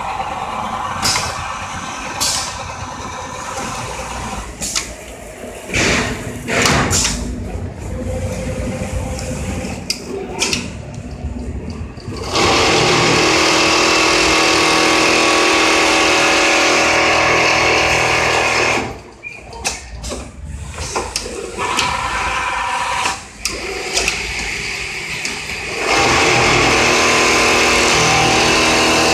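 Richpeace automatic template sewing machine with auto loader at work: irregular clicks and knocks from its moving parts, then two long spells of steady, loud running, one in the middle and one near the end.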